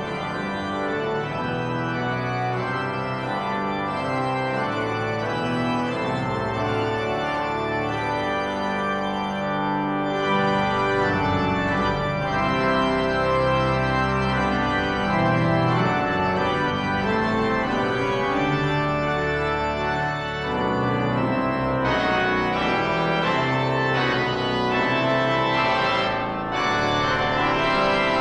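Cathedral pipe organ playing sustained chords that change every second or so.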